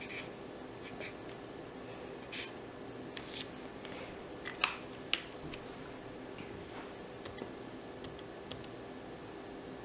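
Sharpie marker scratching a few strokes on a paper notepad, then two sharp clicks about halfway through, followed by faint light taps on a phone's touchscreen calculator. A faint steady hum sits underneath.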